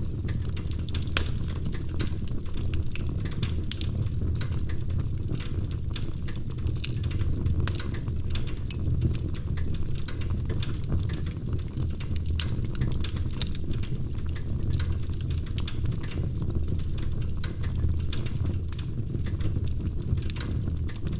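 Wood fire burning in a fireplace: a steady low rumble of flames with frequent, irregular sharp crackles and pops from the burning wood.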